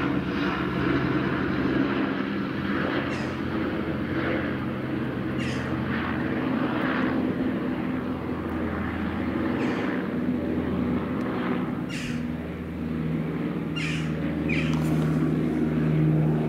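Airbus Helicopters H125 passing overhead: its turboshaft engine and main rotor make a steady, loud drone whose low hum shifts in pitch in the second half as it climbs away after takeoff.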